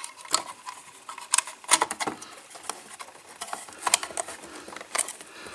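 Hard plastic clicking, knocking and scraping as a black plastic speaker enclosure is worked by hand back into place inside an iPulse jukebox's plastic housing: irregular sharp clicks, several louder knocks among them.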